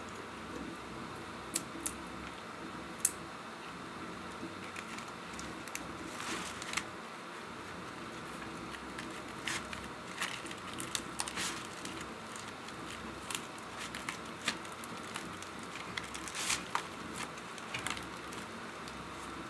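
Soft rustling and scattered light clicks of thin lavash flatbread being folded and rolled around vegetables and cheese by hand, with occasional small taps against a plate.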